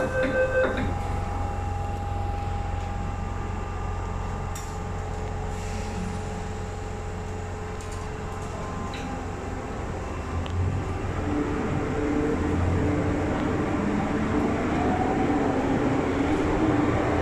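The door warning beeps of an MTR M-Train end about a second in as its doors close with a thump. The car then stands with a steady low hum. From about two-thirds of the way through, the traction motors start a whine that rises in pitch as the train pulls away.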